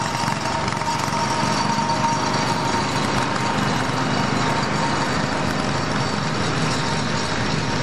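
Several antique farm tractor engines running steadily at low speed, the nearest a red-and-gray Ford tractor coming slowly closer.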